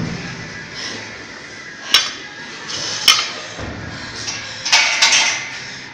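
Metal clanks of a bumper plate and collar being handled on a steel barbell sleeve: a sharp ringing clink about two seconds in, another about a second later, and a short cluster of rattling clanks near the end.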